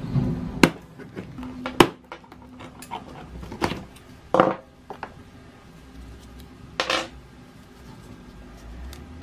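Pliers working a small metal ring off a leather case handle: a handful of sharp metallic clicks and clinks, spaced irregularly, as the ring is levered open and slid free.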